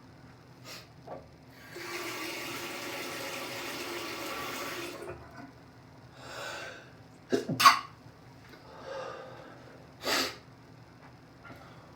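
A man sneezing in an allergic sneezing fit: a sharp intake of breath and then one loud, sudden sneeze about two-thirds through, followed by another, softer sneeze. Before them there is a steady rushing noise lasting about three seconds.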